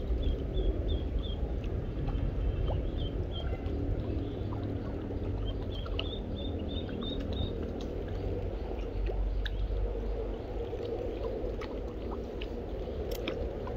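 A steady low rumble of wind and handling on the microphone over water lapping at the bank, with short high peeps in quick runs near the start and again about six seconds in, from the live duckling used as snakehead bait.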